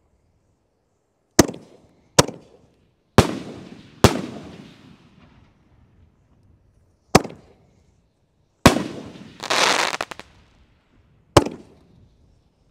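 Super 7 High Velocity 7-inch canister firework shells going off: seven sharp booms, irregularly spaced and each with a fading echo, with a second-long crackle about two-thirds of the way through.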